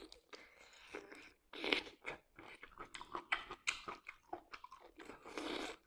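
Close-miked eating sounds: a piece of cooked octopus tentacle being bitten and chewed. It is faint, with irregular wet clicks and small crunches.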